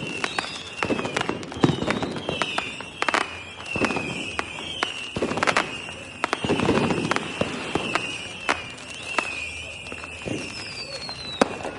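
Fireworks going off: sharp cracks and bangs at irregular intervals, several deeper booms, and a wavering high whistle throughout, with a falling whistle near the end.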